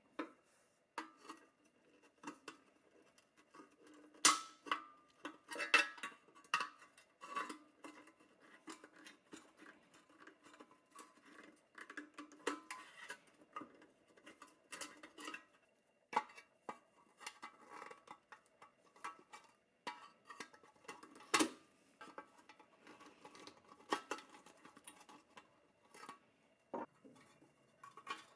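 Irregular light metallic clinks, taps and knocks of hand tools against the pressed-steel parts of a 1950s Tonka toy truck being worked on, with a few sharper knocks among them.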